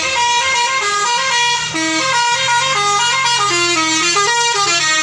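Tour bus's multi-tone telolet basuri horn playing a stepped melody, its notes jumping up and down several times a second, over the low hum of the bus's engine.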